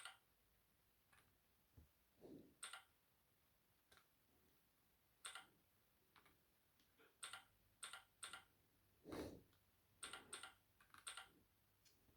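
Keys of a Keychron K5 V2 mechanical keyboard with brown switches being pressed: faint, separate clacks at an uneven pace, coming closer together in the second half, with a duller thump or two among them.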